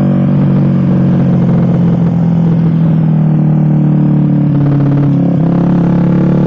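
Suzuki GSX-R150's single-cylinder engine running through an aftermarket SC Project-style racing exhaust, a loud steady drone as the bike is ridden at an even speed. The tone breaks briefly about five seconds in, then carries on.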